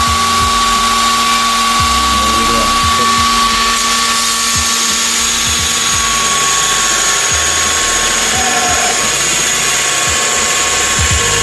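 2-horsepower belt grinder running steadily with a coarse 36-grit belt, grinding metal, with a steady high whine over the grinding noise.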